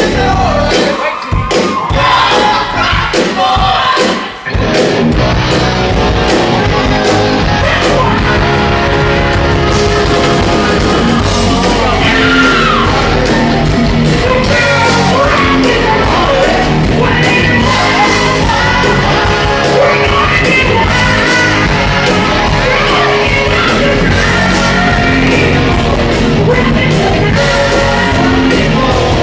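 Live rock band playing with a singer, loud and continuous. The first few seconds are stop-start, with sharp breaks between hits, before the band plays straight through.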